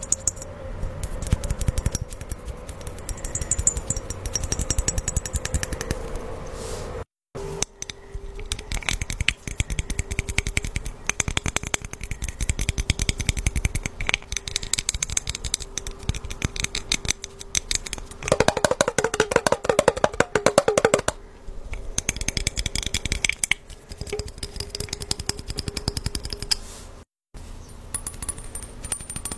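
Fingers tapping rapidly on glass objects, first a slim glass bottle, then a glass jar packed with wrapped candies, then a small glass globe, making quick clicking taps. The run breaks off briefly twice.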